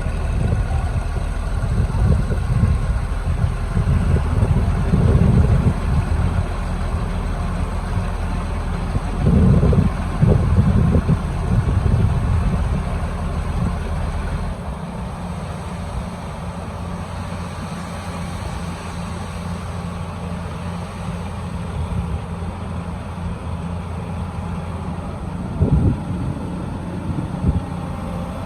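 A construction machine's engine running: louder and uneven with surges for the first fourteen seconds or so, then settling to a quieter steady hum, with a couple of brief thumps near the end.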